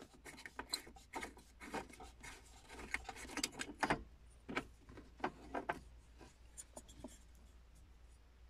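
Clicks, scrapes and rubbing of a car's cigarette lighter socket, a metal sleeve in a plastic housing, being worked out of the plastic console panel and handled. The clicks come thick and fast for the first six seconds or so, then thin out to a few faint ticks.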